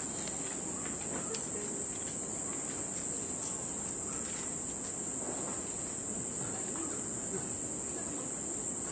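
A steady, high-pitched insect drone of the forest, unbroken throughout, with faint low murmurs and rustles beneath it.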